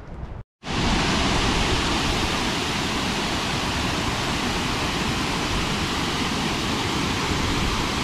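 Steady rush of falling water from a waterfall, cutting in suddenly about half a second in after a brief silence and holding even and loud throughout.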